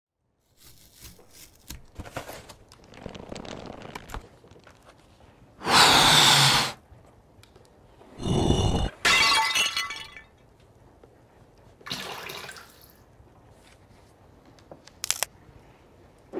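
A string of separate sound effects: faint clicks and rustles, then several loud bursts of rushing noise a few seconds apart, one of them with a squeaky ringing edge, and a short sharp hit near the end.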